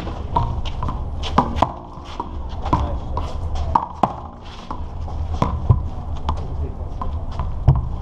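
Handball play: the small rubber handball slapped by hand and bouncing off the concrete wall and court, about a dozen sharp, irregular smacks, some ringing briefly, over a low steady rumble.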